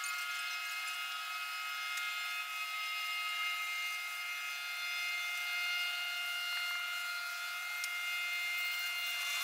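Steady, high-pitched drone of insects, several unchanging pitches at once, typical of a tropical cicada chorus.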